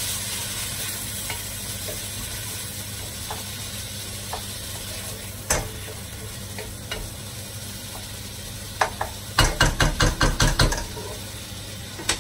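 Chopped tomatoes and browned onions sizzling in a large pot while a wooden spoon stirs and scrapes through them. Near the end comes a quick run of knocks from the spoon against the pot.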